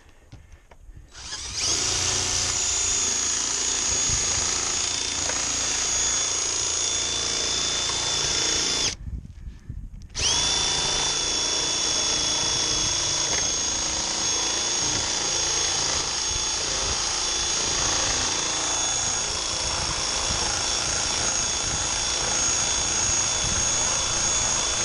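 Cordless drill driving a metal-cutting attachment through a ribbed metal roofing panel: a steady high whine. It starts about a second in, stops for about a second shortly before the middle, then starts again and runs on.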